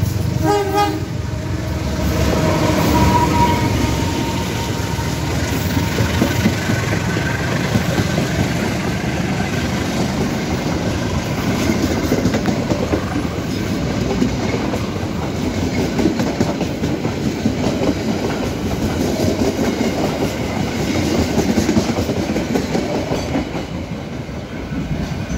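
Diesel-electric locomotive and passenger coaches passing close by on a single track. A short horn blast comes at the start, then the steady rumble and clickety-clack of coach wheels over rail joints, easing slightly near the end as the last coach goes by.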